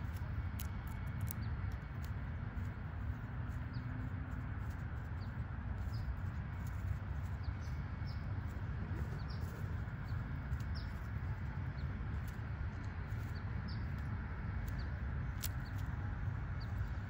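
Outdoor ambience: small birds chirping briefly now and then over a steady low rumble, with a few sharp clicks about a second in and again near the end.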